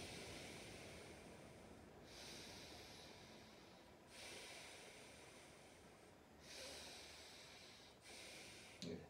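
Slow, faint breaths drawn in and let out through the nose, alternating about every two seconds during a held yoga pose. A light click comes near the end.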